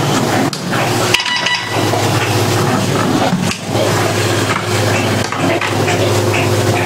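Light clinks and knocks of a TV power-supply circuit board and its screws being handled against a sheet-metal chassis, over a steady low hum.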